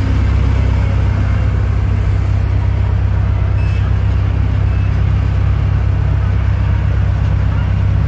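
Steady low engine and road rumble of a vehicle, heard from inside it as it drives.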